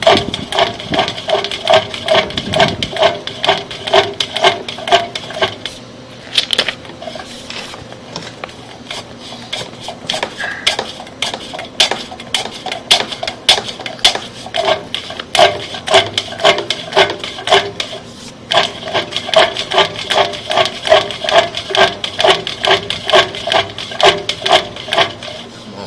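Rapid, evenly spaced metallic clicking with a ringing tone: a sewer inspection camera's push-cable reel being worked as the camera head, stuck in a broken cast iron pipe, is pulled on. The clicking thins out for several seconds in the middle and picks up again about halfway through.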